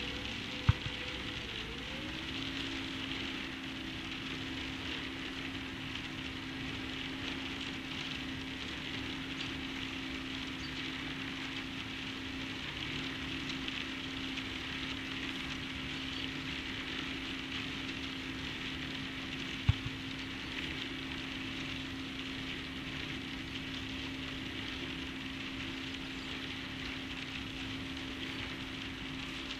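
Steady outdoor hiss with a low steady hum whose pitch drops about two seconds in, and two sharp clicks, one about a second in and one about twenty seconds in.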